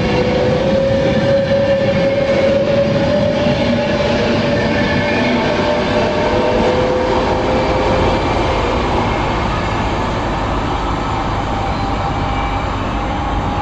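A passenger train running through the station: a steady rumble and rattle of wheels on track, with a whine that slowly rises in pitch and fades out about eight seconds in.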